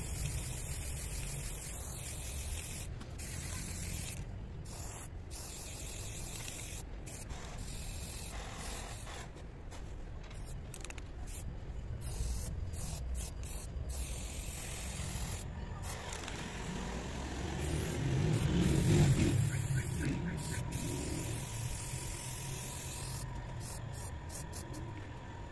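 Aerosol spray-paint can hissing in repeated spurts of varying length, stopping and starting with short breaks as paint is laid onto a wall. A steady low rumble runs underneath and swells to its loudest about three-quarters of the way through.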